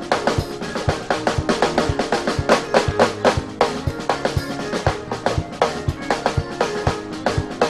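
Live band playing a fast, driving beat led by the drum kit: kick drum about twice a second under busy snare and rimshot hits, with sustained keyboard or bass notes beneath.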